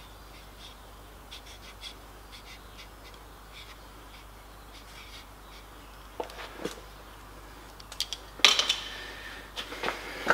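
Faint, short bird calls, then several loud knocks and a clatter in the last four seconds.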